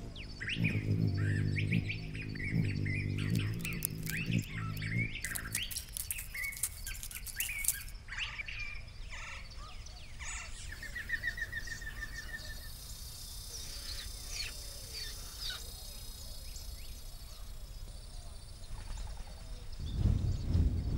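Desert birds chirping and calling throughout, with many short high notes and a rapid trill near the middle, over a low repeated droning tone in the first few seconds. Near the end comes a loud low whoosh of a hawk's wingbeats as it takes off.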